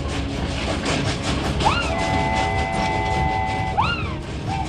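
Cartoon sound effect of a train rolling along the rails, with a dense clickety-clack of wheels over the track. Over it, a held tone slides up about two seconds in, holds steady and bends away near four seconds.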